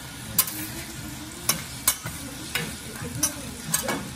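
Food sizzling on a steel teppanyaki griddle, with sharp metal clicks, about seven of them at uneven intervals, as a knife and fork strike and scrape the plate while cutting and pushing small pieces across it.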